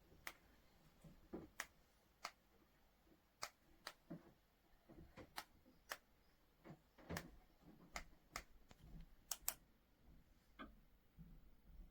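Irregular light clicks and taps, more than a dozen short sharp ones scattered through the stretch, with a few softer knocks in between.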